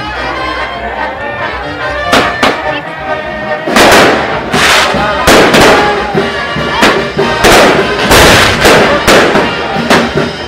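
Fireworks going off in a rapid series of sharp bangs. The first come about two seconds in, and they grow dense and loud from about four seconds on. Band music plays underneath, most clearly at the start.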